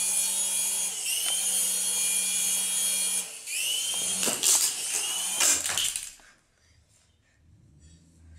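Toy RC helicopter's small electric motors and rotors running with a steady high whine. They drop out briefly about three seconds in, spool back up with a rising whine and a few sharp knocks, then cut off about six seconds in.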